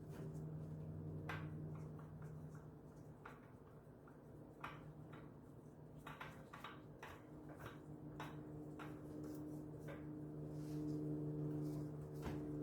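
Faint, irregular light clicks and taps of hands and tools handling parts while the new oil filter is being fitted, over a steady low hum.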